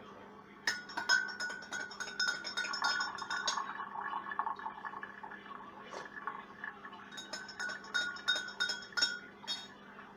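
A spoon clinking against the inside of a coffee cup while stirring, in two bouts of quick, ringing taps: one starting about a second in, the other about seven seconds in.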